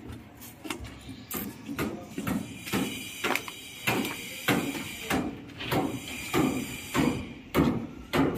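Footsteps on gritty concrete, about two a second in an even walking rhythm.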